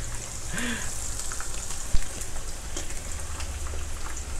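Battered water spinach leaves deep-frying in hot oil: a steady crackling sizzle with many small pops, and one sharper pop about two seconds in.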